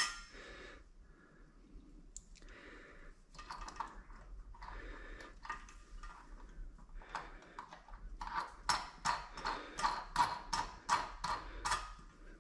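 Light handling clatter, then about four seconds of quick, regular clicks or knocks, two to three a second, as parts of a toilet are worked on during installation.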